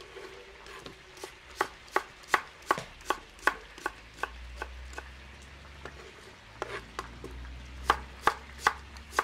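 Kitchen knife slicing an onion on a wooden cutting board: a run of sharp knocks about three a second, pausing for a couple of seconds midway before the slicing resumes.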